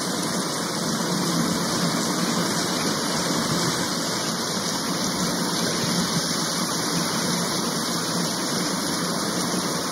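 Fountain jets arching through the air and splashing down into a pond: a loud, steady rush of falling water.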